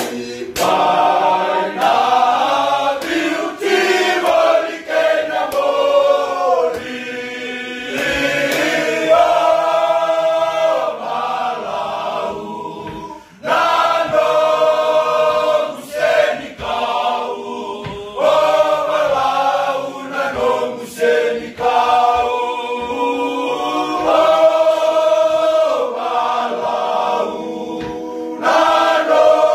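A team of young men singing together unaccompanied, a choir-like group song in Fijian, in long sung phrases with one short break midway.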